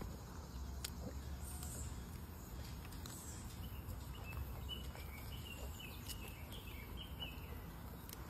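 Faint outdoor background noise with a run of short, high animal chirps in the middle.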